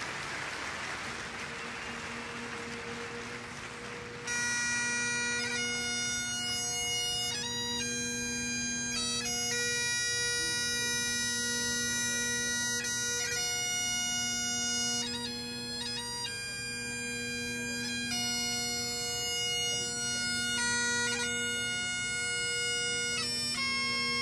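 Solo Great Highland bagpipe (biniou bras). The drones sound first over a steady hiss, then the chanter comes in about four seconds in, playing a slow tune of long held notes over the drones.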